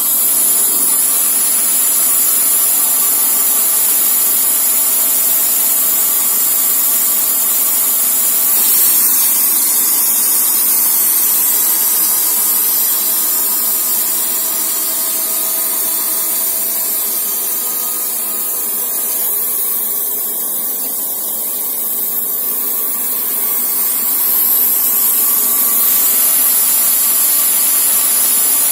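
Wood-Mizer LT40 Super band sawmill running, its blade sawing steadily through a log. The sound shifts a little about nine seconds in and again near the end.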